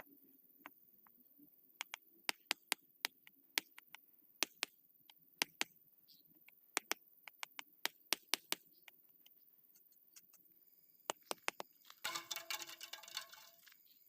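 Concrete paving blocks clacking against one another as they are set in place: a string of sharp, irregular clicks. About twelve seconds in there is a denser rattle lasting about a second.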